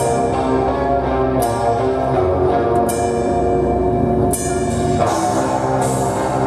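Live heavy metal music: slow, sustained melodic chords with a cymbal crash about every one and a half seconds.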